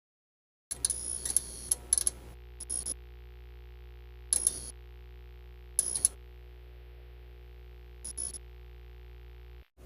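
Analog-horror sound effect: a steady electrical hum that starts suddenly, broken by short bursts of crackling, glitchy static with a high whine, five or so at irregular intervals, and a brief dropout near the end.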